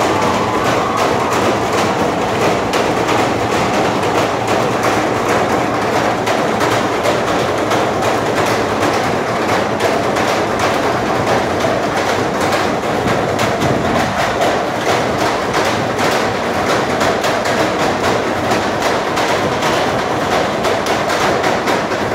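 An ensemble drumming with sticks on plastic and metal garbage cans: fast, continuous beating with no pauses.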